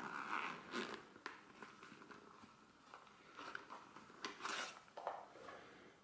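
Zipper of a leather camera case being pulled open in several short pulls, with the leather rustling as a metal Super 8 camera is slid out. A few sharp clicks come between the zipper runs.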